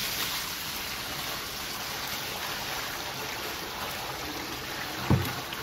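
Warm water poured in a steady stream into a jet ski's fiberglass hull, splashing and gushing onto the foamy degreaser-covered floor. A single thump about five seconds in.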